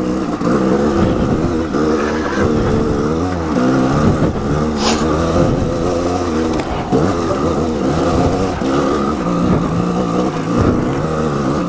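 Dirt bike engine running as it rides a muddy trail, its pitch rising and falling over and over as the throttle is opened and closed.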